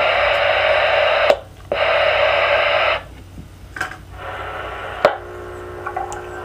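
Radio receiver static hissing on the CB frequency, dropping out for a moment just after a second in. About three seconds in the hiss goes quiet as the CB transmitter is keyed and its carrier quiets the receiver, leaving a faint steady tone with a few clicks.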